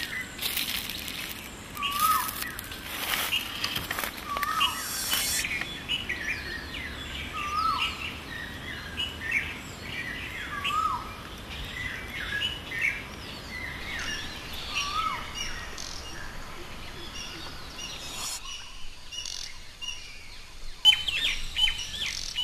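Forest birds calling and chirping. One bird repeats the same short, hooked call every two to four seconds while other birds chirp higher and faster. A few noisy swishes come in the first five seconds, and a sharp click, the loudest sound, comes near the end.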